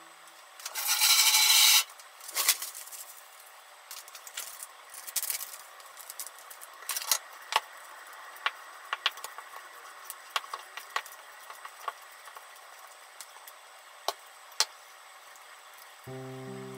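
Wooden spatula scraping and clicking against a stainless steel mixing bowl as minced chicken is mixed by hand, in scattered light strokes. About a second in there is a loud rustling hiss lasting about a second, the loudest sound here. Music comes back in near the end.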